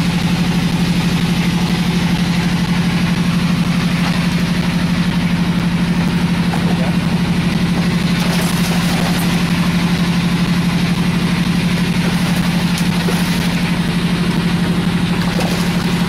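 A fishing boat's engine running at a steady idle, an unbroken low drone.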